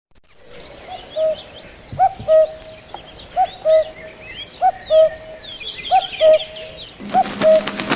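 A bird repeating a two-note call, a short upswept note then a longer level one, about every second and a half, over the high chirping of smaller birds. About seven seconds in, a hiss and a steady low hum come in under the calls.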